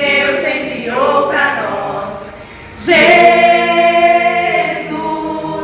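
Choir singing a worship song, holding long sustained notes; a long held note begins about three seconds in.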